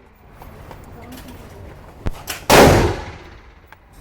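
A 12-gauge shotgun fires a single loud shot about two and a half seconds in, with a ringing tail that dies away over about half a second. A couple of short sharp clicks come just before it.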